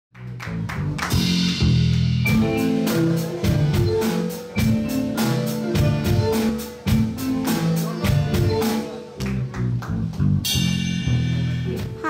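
Live band music with a drum kit keeping a steady beat under guitar and accordion.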